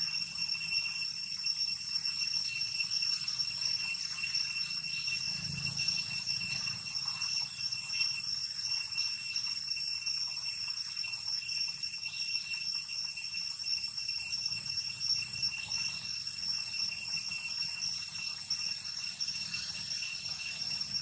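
Cicadas buzzing steadily in a high, shrill chorus with a fast, even pulse.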